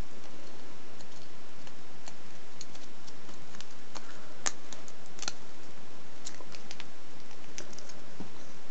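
Thin gold foil chocolate-coin wrapper crinkling between fingers as its petals are folded and pinched, in scattered small crackles, the sharpest about four and a half seconds in.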